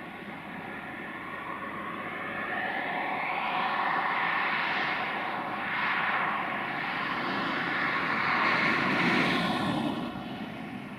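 Double-headed Romanian 060-DA (LDE2100) diesel-electric locomotives running on a freight train as it approaches. Their engines make a steady drone that grows louder, swells a few times and eases off near the end.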